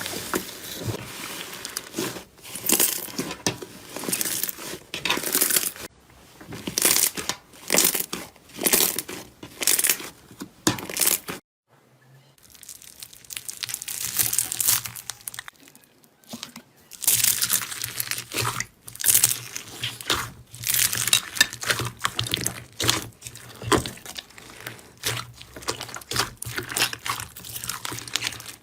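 Slime being squeezed, pressed and stretched by hand, giving a quick, irregular run of crisp crackling and popping bursts. It drops out briefly about a third of the way in, and when it resumes a faint low hum runs underneath.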